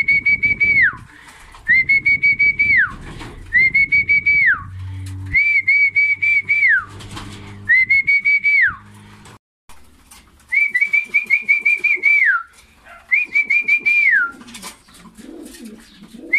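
A trilled whistle blown in about seven calls, each a steady high note about a second long that drops away at the end. It is the fancier's call bringing racing pigeons into the loft to feed.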